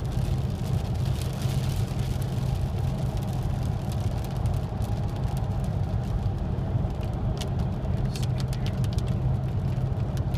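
Car driving on a rain-soaked highway, heard from inside the cabin: a steady low drone of engine and road noise under an even hiss of tyres on the wet road, with the windshield wipers going. Scattered light ticks, most in the second half, fit raindrops striking the windshield in light rain.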